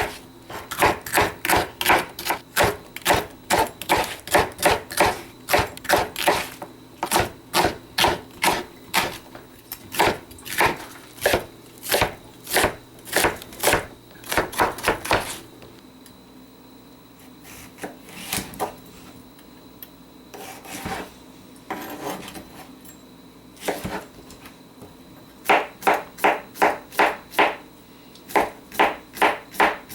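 Knife chopping vegetables on a cutting board in a steady run of strokes, about three a second. About halfway through it breaks off into several seconds with only a few separate cuts, then the quick chopping starts again near the end.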